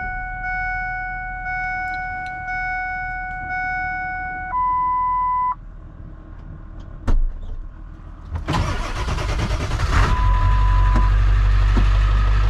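A truck's warning chime dings steadily about once a second, then gives one longer single tone. A few seconds later the engine cranks, fires and settles into a steady idle.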